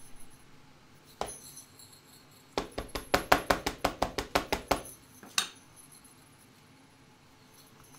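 An ink pad patted rapidly onto a clear stamp held in a stamping platform's open door: one knock, then a quick run of about fourteen taps over two seconds, and one more tap after.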